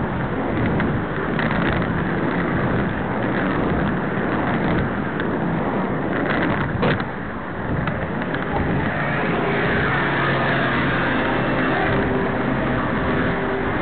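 Steady rushing drone of a vehicle in motion. A few steady tones join in about nine seconds in.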